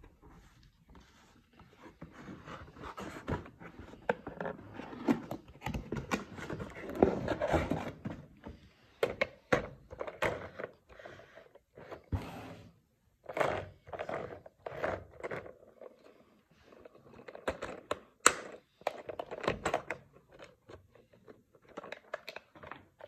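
Cardboard toy box and a hard plastic toy car being handled: the box slides and scrapes, and the plastic clicks and knocks. Denser rustling and scraping comes in the first third, then mostly separate clicks and knocks as the car is lifted out and turned over.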